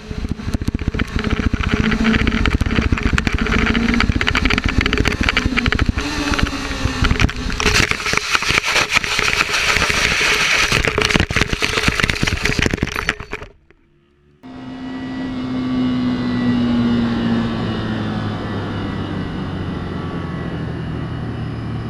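Motorcycle riding sound: heavy wind buffeting and crackle over the engine, cutting off suddenly about 13 seconds in. After a short gap the motorcycle engine runs steadily, its pitch falling a little as it slows.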